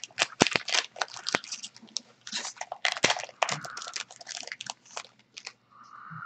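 Foil wrapper of a 2015 Bowman baseball card pack crinkling and crackling in irregular bursts as it is torn open and handled, stopping shortly before the end.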